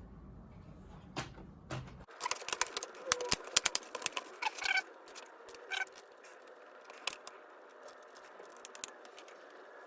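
Small sharp clicks and taps from laptop parts being handled and fitted back together. They come in a quick, dense run starting about two seconds in and last about three seconds, followed by a few scattered clicks.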